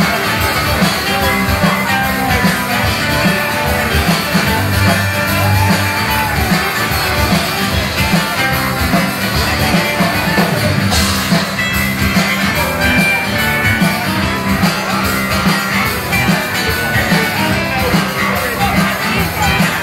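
A live rock band playing: strummed acoustic-electric guitar, electric guitar and drum kit, with a steady beat.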